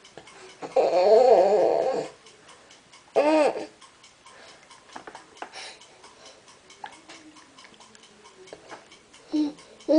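Infant babbling and cooing: a long wavering vocal sound about a second in, a short rising-and-falling one around three seconds in, and another short one near the end.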